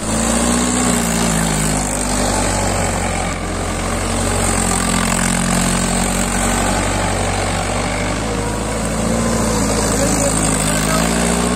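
Mahindra tractor's diesel engine running steadily as the tractor drives across rough ground, its pitch dipping and rising a little near the start and again near the end.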